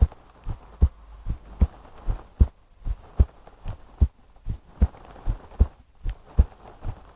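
A person's heartbeat heard close up: a steady lub-dub of paired low thumps at about 75 beats a minute.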